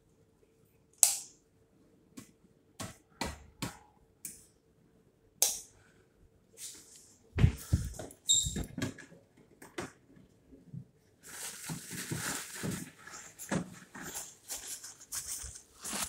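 Scattered clicks, knocks and rustles of a phone being handled and a person moving about a small tiled washroom. A fluctuating hiss sets in a little past the middle and runs on.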